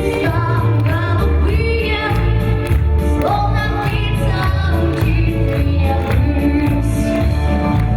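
Gypsy ensemble song with singing voices over a band, a strong bass pulsing steadily underneath.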